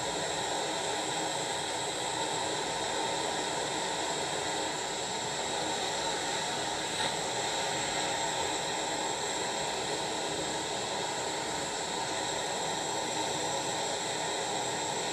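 Handheld gas torch burning with a steady rushing hiss as its flame heats a spoon of bismuth chips.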